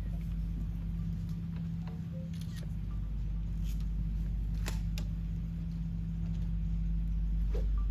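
A steady low hum with a few faint sharp clicks in the middle.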